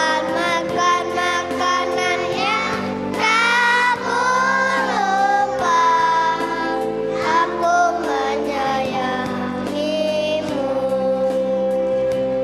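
Young kindergarten children's choir singing together over musical accompaniment, with held backing notes and a steady beat.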